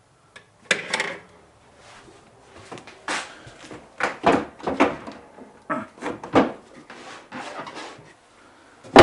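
Kitchen drawers and cupboard doors being pulled open and pushed shut one after another: a string of sliding scrapes and knocks.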